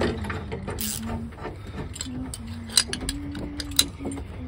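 Ratcheting combination wrench clicking as it is worked back and forth on a truck cap clamp: an irregular run of small clicks, with two sharper clacks about three and four seconds in.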